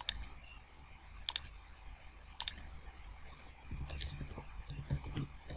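A few single computer-mouse clicks, then a quick run of keystrokes on a computer keyboard from about two-thirds of the way in.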